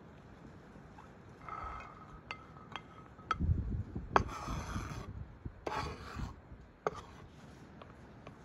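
Scraping and rubbing as pomegranate seeds, then chopped dill and cilantro, are pushed off a plate and a wooden cutting board into an enamel bowl, with a few sharp knocks. It is loudest in the middle.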